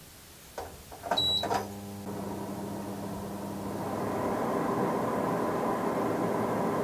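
Air fryer starting on its bake setting: a short high beep about a second in, then its fan motor starts humming, with a rush of air that builds over the next few seconds to a steady level.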